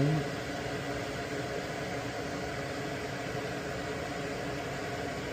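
Steady hum and hiss of a running fan, with a few faint steady tones and no distinct clicks or knocks.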